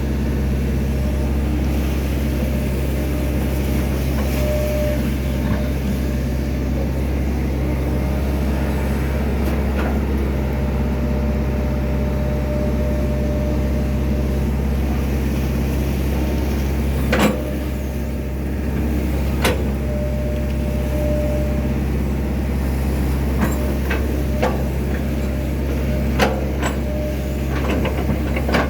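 Hydraulic excavator's diesel engine running steadily under work, with a higher whine that comes and goes. Sharp metallic clanks sound about two thirds of the way in and several more near the end.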